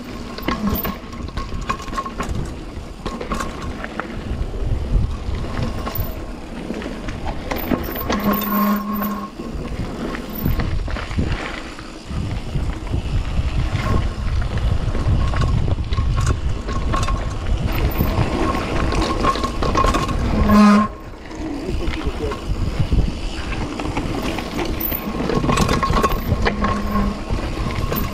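Mountain bike rolling fast down a dirt singletrack, heard from a helmet-mounted GoPro: a steady rumble of wind on the microphone and tyres on dirt, with the bike clattering over roots and bumps. A short, loud squeal about twenty seconds in cuts off suddenly.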